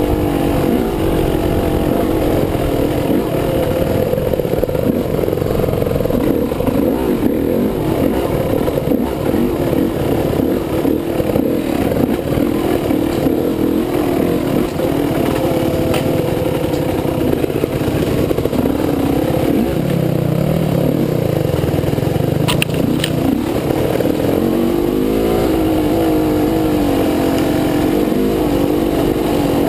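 Off-road trail motorcycle's engine running under way, its pitch rising and falling with the throttle and climbing near the end.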